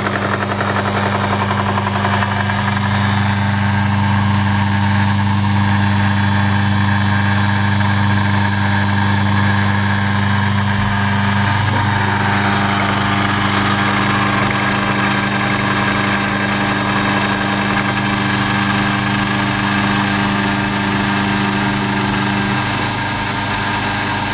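EMCO Compact 5 milling attachment motor running steadily with a strong hum, the cutter working a gear blank on the rotary table during a gear-cutting pass. Part of the hum drops out about 22 seconds in.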